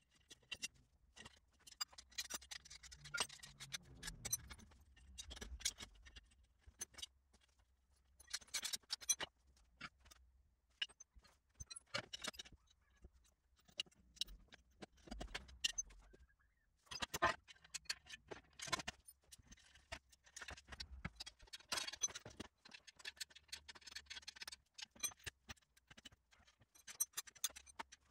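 Faint, irregular metallic clinks, clicks and scrapes of steel bolts, washers and frame parts of an engine stand being handled and fitted together by hand.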